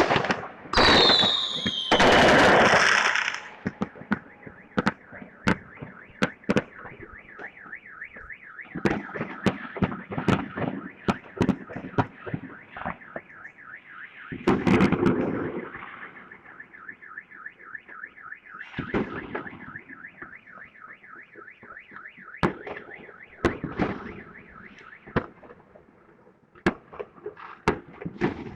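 Fireworks bursting and cracking, with loud bangs and a falling whistle in the first few seconds and scattered cracks and booms after that. A car alarm sounds a fast, evenly repeating wail through most of it.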